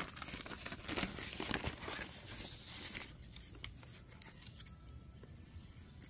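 Paper rustling and crinkling for about the first three seconds, then a few short snips of scissors cutting through paper.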